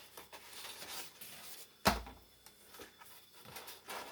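Air fryer trays and parts being handled: faint clicks and rustles, with one sharp knock about two seconds in.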